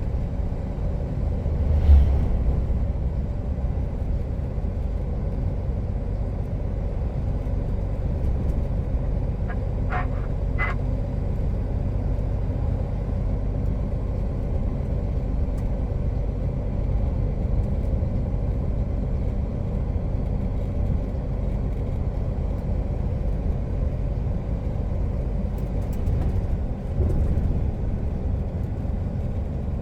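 Heavy truck's diesel engine running with road rumble, heard on board while driving. There is a thump about two seconds in and a few short, high chirps around ten seconds in.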